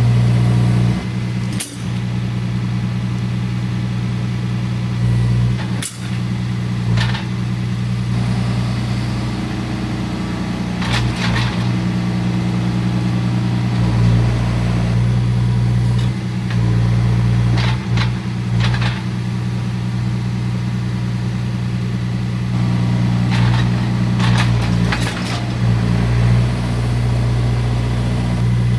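John Deere 4044M compact tractor's four-cylinder diesel engine running steadily, with about a dozen short knocks and clanks scattered through it.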